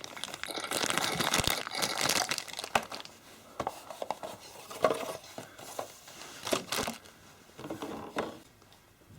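Packaging crinkling and rustling as the contents are handled and unpacked: a dense stretch for the first couple of seconds, then scattered crackles and clicks, fading to quiet near the end.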